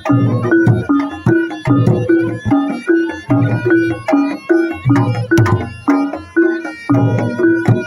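Traditional Reog Ponorogo accompaniment music: drums and pitched percussion playing a steady repeating pattern of about two beats a second.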